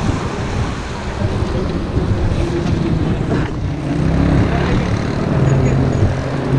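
Roadside traffic noise and wind on the action camera's microphone. From about four seconds in, a heavy vehicle's engine adds a steady low hum.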